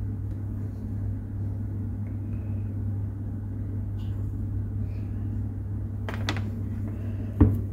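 Steady low background hum, with a short rustle about six seconds in and a brief low knock near the end.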